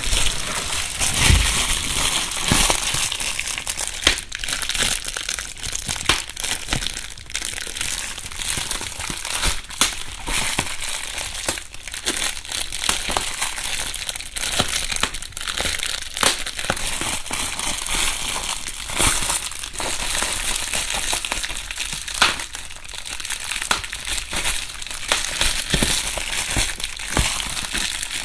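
Plastic bubble wrap being crumpled and rustled by hand, close up in a binaural recording: a continuous crinkling rustle with many sharp crackles and pops scattered throughout.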